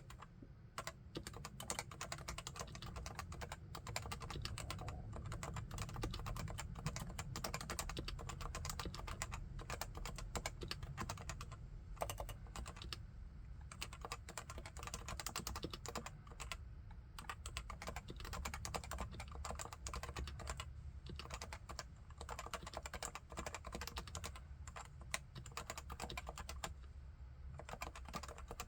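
Continuous typing on a Leopold FC980C keyboard with 45g Topre electrostatic capacitive switches: a dense, steady run of keystrokes with a few brief pauses.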